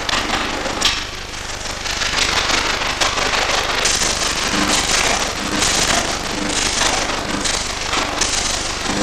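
Electric arc welding crackling steadily, with irregular sharp pops.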